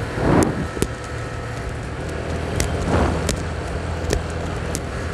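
Motorcycle engine running steadily while riding, with wind noise on the microphone swelling twice and a few short sharp ticks or knocks.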